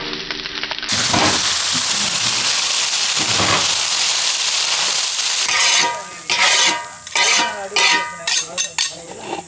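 Squid rings frying in oil on a flat tawa griddle, a steady sizzle. From about six seconds in, a metal spatula scrapes across the tawa in a run of short strokes as the fried squid is scooped off.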